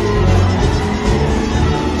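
Live Scottish ceilidh dance music played by a four-piece band of two fiddles, keyboard and drums.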